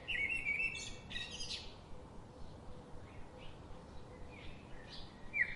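Birds chirping and tweeting in short, high, sliding calls, clearest in the first second and a half and then fainter and sparser.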